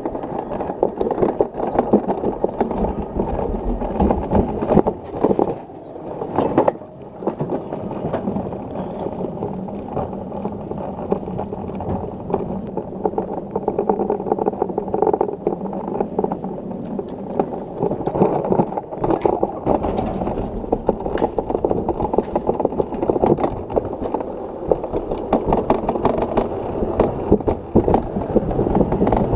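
Toboggan cart running on a steel track: a continuous rattling rumble of the cart in the metal trough, studded with small clacks and a few harder knocks. A faint high whine sounds from about 8 to 12 seconds in.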